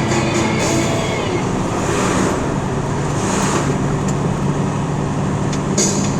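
A vehicle running along a highway: steady road and engine noise, with a low hum that grows stronger about halfway through.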